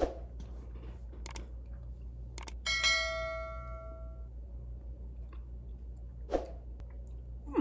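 A single bright bell-like ring, struck once about two and a half seconds in and fading over about a second and a half, among a few soft clicks and knocks.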